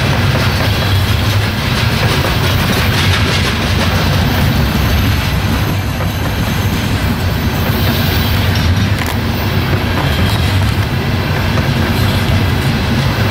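CSX freight train's open-top hopper cars rolling past on the rails: a steady, loud rumble of steel wheels on track with many small clacks.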